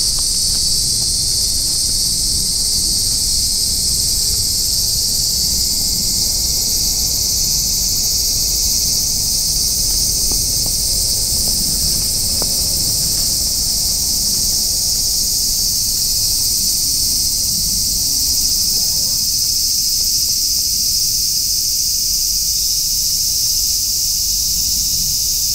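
A steady, high-pitched chorus of insects calling without a break.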